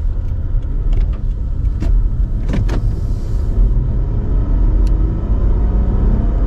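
Toyota Mark X's 2.5-litre V6 and road rumble heard inside the cabin while driving, the engine note rising gently as the car picks up speed. A few sharp clicks come about two to three seconds in.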